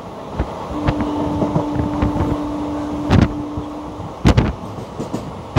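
Express train coach running on the track, heard from on board: a steady rumble with sharp wheel clacks, the loudest two about three and four seconds in. A steady tone sounds for about three seconds in the middle.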